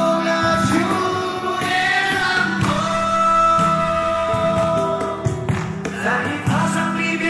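Background music from a song: long held sung notes over a steady backing accompaniment.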